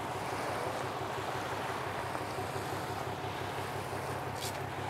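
A car driving: steady road noise with a constant low hum. There is a brief tick about four and a half seconds in.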